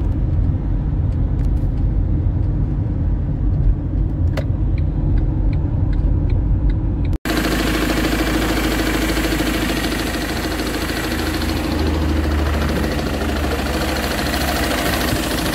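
Ford Transit on the move at low revs: a steady low engine and road rumble from inside the cab. About seven seconds in it cuts abruptly to the engine running steadily, heard close up. This is the engine with a knock that the mechanics traced to the belt tensioner pulley.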